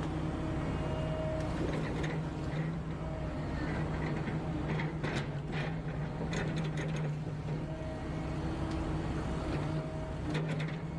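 Heavy forestry machine's engine running steadily at a constant pitch, with a few sharp knocks and clicks midway and again near the end.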